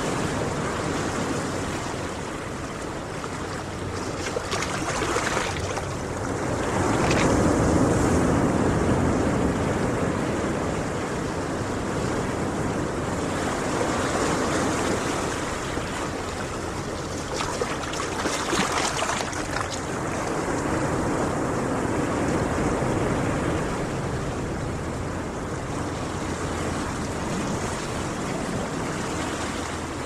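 Ocean surf breaking on a beach: a steady wash of waves, swelling louder as a wave comes in about a quarter of the way through and again a little past the middle, then easing back.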